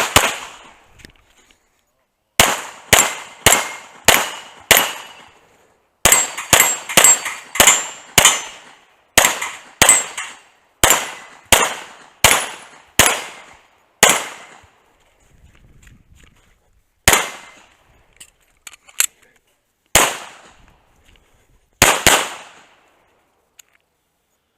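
Pistol shots fired in a stage of a practical shooting match: about two dozen shots in quick pairs and strings, with short pauses between strings and a few spaced single shots near the end.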